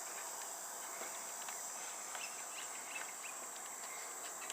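Steady high insect chirring, crickets, with a few faint ticks of a wrench working the mower's battery terminal bolt.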